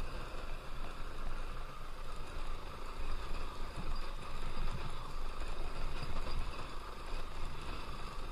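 Honda XR190L's single-cylinder four-stroke engine running steadily as the dirt bike rides over a rough, stony track, mixed with a steady rush of wind and road noise.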